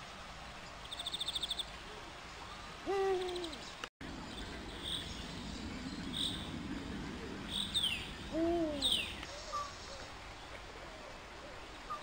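Deep hoots of an eagle-owl, one about three seconds in and another about eight seconds in, each rising and falling briefly. Small birds add a short rapid high trill about a second in, and brief high chirps and falling whistles in between.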